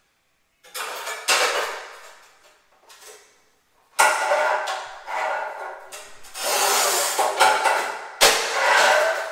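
Manual score-and-snap tile cutter at work: several scraping strokes of the scoring wheel across the tile, two of them starting with a sharp crack, about four seconds in and again near the end.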